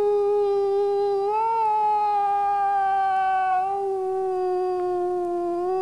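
A man imitating a wolf howl through cupped hands: one long held note that slowly sinks in pitch, lifting slightly twice along the way.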